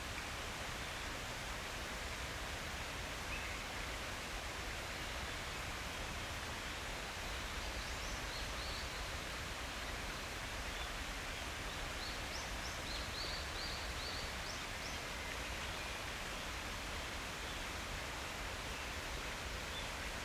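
Steady, even rushing outdoor ambience of a mountain forest, with a small bird giving short, high chirps in quick little runs partway through.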